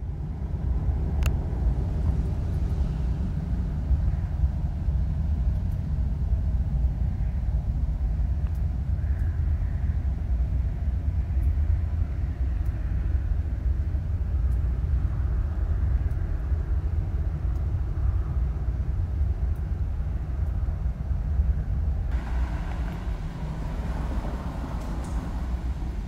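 A steady, low rumbling drone from the night sky, which the person who recorded it likens to a jet hovering around the house. A hissier layer joins about four seconds before the end.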